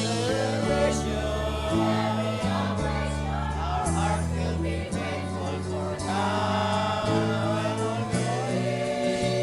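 Church choir singing a praise anthem in parts over an instrumental accompaniment, with low bass notes changing about once a second.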